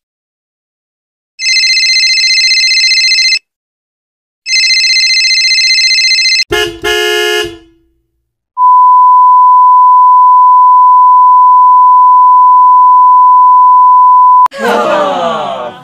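A run of stock sound effects: two horn-like honks of about two seconds each, a short burst, then a single steady beep tone held for about six seconds, the classic censor bleep, followed by a burst of falling tones near the end.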